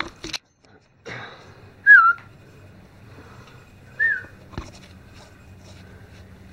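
Two short whistles about two seconds apart, each a single note that bends quickly in pitch; the first is the louder.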